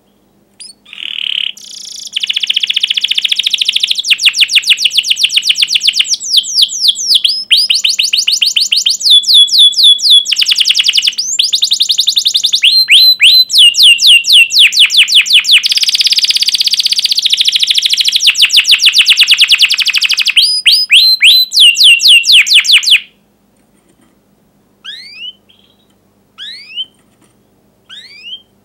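Domestic canary singing a long song of rapid rolling trills, each a fast run of repeated falling chirps, with short breaks between phrases. The song stops about three-quarters of the way through, leaving a few lone sharp chirps near the end.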